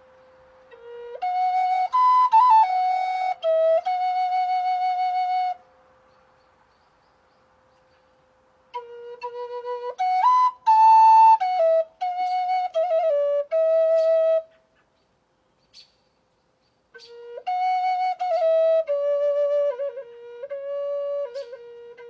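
Wooden end-blown flute playing a slow, simple melody of held notes stepping up and down, in three phrases with pauses of a few seconds between them.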